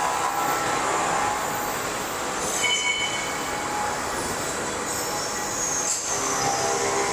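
Steady din of running factory machinery in a machining area, with brief high-pitched squeals and whines a few times.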